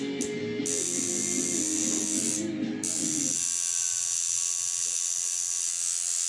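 Electric tattoo machine buzzing steadily as the needle works on skin, with two short breaks in the buzz in the first few seconds.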